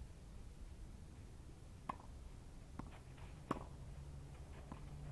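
Tennis ball struck by rackets during a rally: two sharp pops about a second and a half apart, with fainter taps between them.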